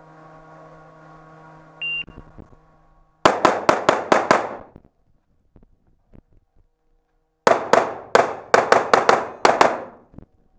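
A shot timer gives one short, high beep, the start signal for an IPSC stage. About a second later a semi-automatic pistol fires a quick string of about six shots. After a few seconds a second, longer string follows, each shot echoing off the stone walls of the underground range.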